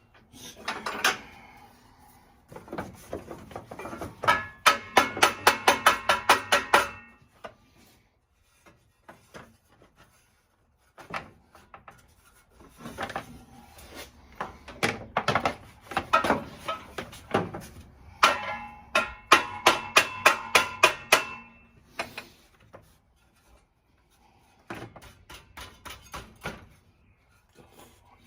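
Hand tools on metal at a Ford 302 V8's water pump pulley, which is stuck: two runs of fast, evenly spaced metallic clicks, about five a second, that ring at a few steady pitches. Scattered single clicks and rubbing noises come between them.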